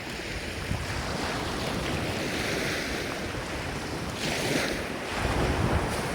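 Ocean waves washing in on the shore in a continuous hiss, with a brighter surge about two-thirds of the way through. Near the end, low rumbling gusts of wind buffet the microphone.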